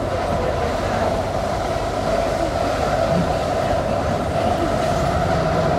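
Tyne and Wear Metro Class 599 Metrocar running along the line, heard from inside the passenger car: a steady rumble of wheels on rail with a constant hum.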